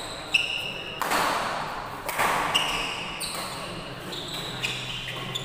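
Badminton rally: several sharp smacks of rackets hitting the shuttlecock, the loudest about a third of a second in and about two and a half seconds in, with short high squeaks of sneakers on the court between them.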